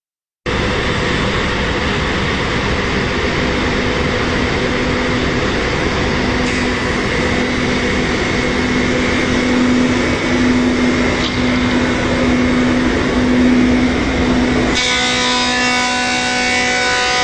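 Four-side wood moulder (Reignmac RMM620-L) running: a loud, steady mechanical noise with a constant low hum from its motors and spindles. About fifteen seconds in, the sound changes suddenly to several steady tones held over the noise.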